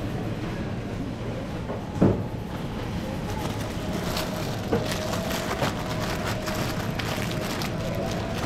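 Supermarket shop-floor ambience: a steady background hum and rumble, with a sharp knock about two seconds in and a few lighter clicks later on.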